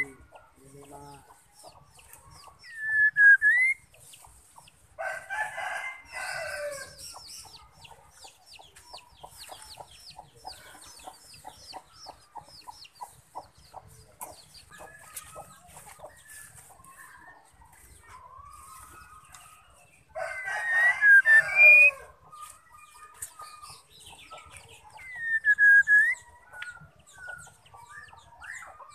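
A rooster crows twice, loudest, about five seconds in and again about twenty seconds in. Between the crows a female white-rumped shama gives short swooping whistled calls, over faint ticking chatter.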